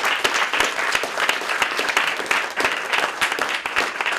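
Audience applauding: many people clapping together in a steady, dense round.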